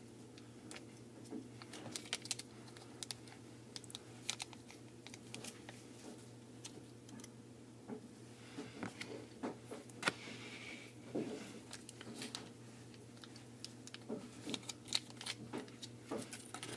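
Scattered small clicks and crinkling as a foil packet of Sugru mouldable glue is handled and opened, over a steady low hum.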